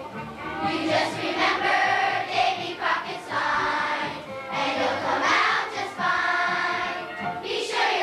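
Children's choir singing a song together with musical accompaniment.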